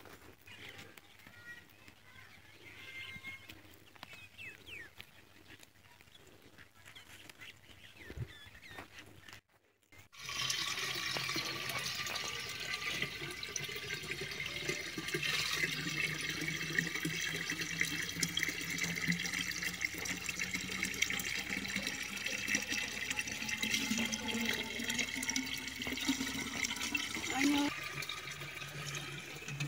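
Faint outdoor background for about the first ten seconds, then, after a brief cut, water pouring steadily from a pipe into a clay water pot, filling it, with a low note in the rush slowly rising as it fills.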